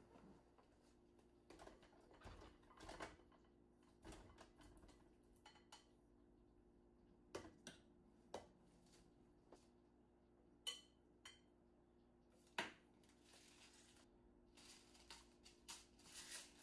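Faint kitchen handling sounds over a low steady hum: scattered soft knocks and a few light clinks as cooked potatoes and dishes are handled at a glass mixing bowl, the loudest knock about two-thirds of the way through. Near the end comes a short soft rattling hiss as seasoning is shaken over the potatoes.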